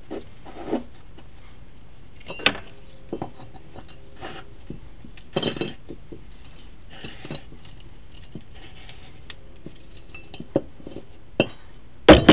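Scattered clicks, knocks and scrapes of a sewer cleanout cap and inspection gear being handled, with a loud sharp clatter near the end.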